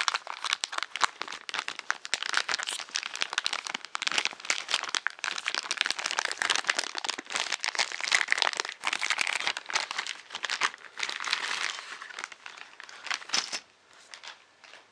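Plastic packaging crinkling and crackling continuously as it is handled and opened, stopping about a second before the end.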